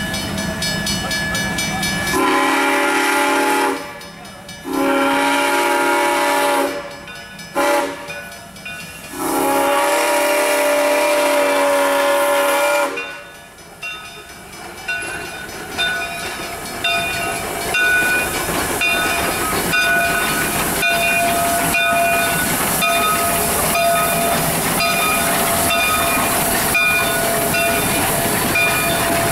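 Steam whistle of a Shay geared steam locomotive blowing the grade-crossing signal: two long blasts, one short and one long. Then the locomotive works slowly past with a steady rhythm of exhaust chuffs and clanks, and a bell ringing.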